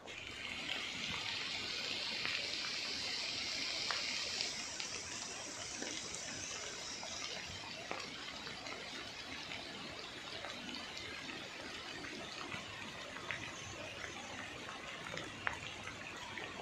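Steady rush of flowing water, brighter and hissier for the first several seconds, with a few faint clicks.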